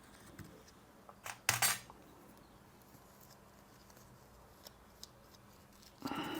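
A few small clicks and clinks of hand tools handled on a workbench, the loudest cluster about a second and a half in, with a short rustling burst near the end.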